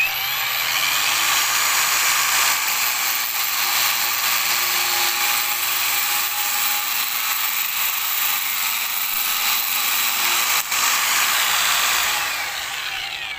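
Angle grinder spinning a CD used as a cutting disc, cutting easily through plastic electrical conduit: a steady high whine with grinding hiss. Near the end the motor winds down and the sound dies away.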